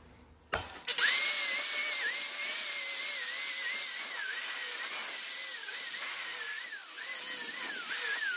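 Angle grinder with a stainless steel wire wheel starting up about a second in, then running steadily while wire-wheeling oily dirt off a cast aluminum pump housing. Its high whine dips in pitch now and then as the wheel is pressed into the work.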